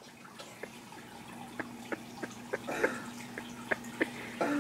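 Aquarium water dripping and splashing in short irregular drops over a steady low hum, the drops coming thicker from about a second and a half in.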